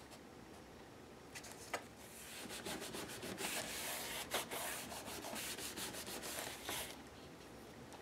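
Hands rubbing and smoothing a Mod Podge-glued patch down onto a journal cover, in a run of quick rubbing strokes after a couple of light taps; the rubbing stops about a second before the end.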